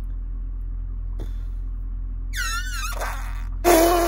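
A man's wordless vocalizing over a steady low cabin drone: a high, wavering whine a little past two seconds in, then a loud groan near the end.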